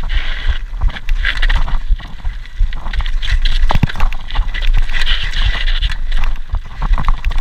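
Mountain bike riding fast down a dirt forest trail: tyres rolling over the dirt, with frequent knocks and rattles from the bike over the bumps and a steady low rumble throughout.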